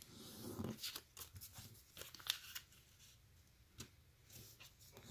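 A sheet of origami paper being folded and creased by hand: faint rustling with scattered short crackles as the flaps are pressed flat, busiest in the first second and near the end.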